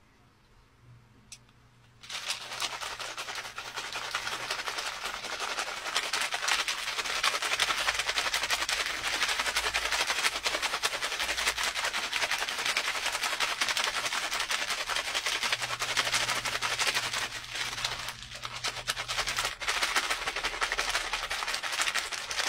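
Plastic wrapper being crinkled close to the microphone: a dense crackling rustle that starts about two seconds in and goes on almost without a break.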